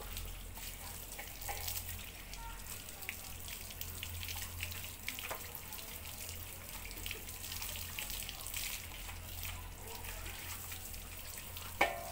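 Water from a garden hose splashing and dripping during a motorcycle wash: a steady hiss with many small, irregular splats. A single sharp knock near the end.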